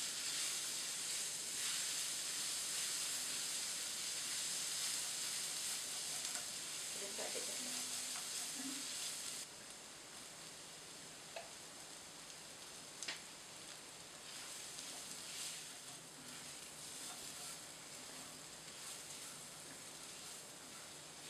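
Crushed garlic sizzling as it fries in oil in an enamel pan, stirred with a spatula. About nine seconds in the sizzle drops quieter as sliced button mushrooms fry in the pan, with a few light clicks of the spatula.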